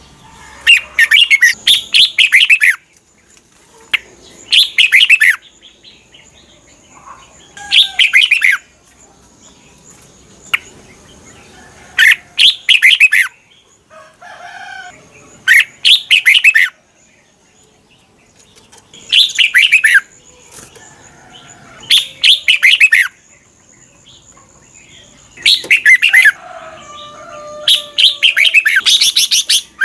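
Red-whiskered bulbul singing about nine loud, warbled phrases, each a second or two long, with short quiet gaps between. A faint steady high whine comes and goes behind the song.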